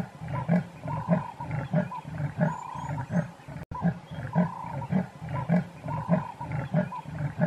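Leopard calling with its sawing call: a long, rhythmic series of hoarse grunts, a few each second.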